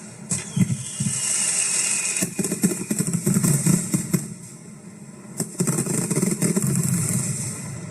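Fireworks at close range: a hiss about a second in, then two long runs of dense, rapid crackling pops with a short lull between them.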